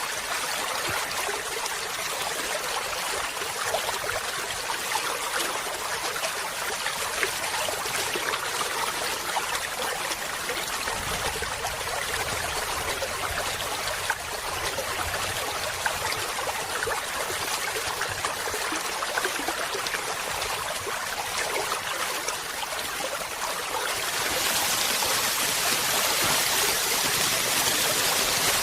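Steady trickling of running water, growing a little louder and brighter near the end.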